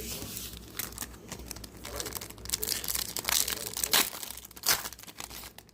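Pokémon booster pack wrapper crinkling and tearing as it is ripped open by hand, with a few sharp, louder crackles about two thirds of the way in.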